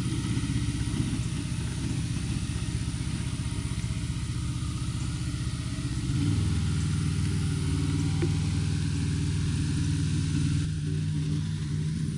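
A vehicle engine running steadily; about six seconds in its note shifts and grows a little louder, then holds.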